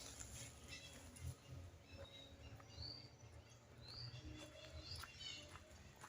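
Faint bird calls: about three short chirps roughly a second apart, over a low, uneven rumble.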